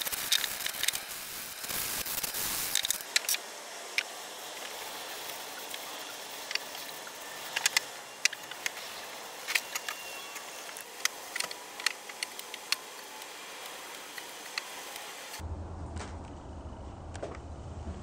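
Sandpaper rasping against the wooden shovel's handle for the first three seconds. Then a quieter stretch of a rag rubbing boiled linseed oil into the wood, with scattered light clicks and taps. A steady low hum comes in about three-quarters of the way through.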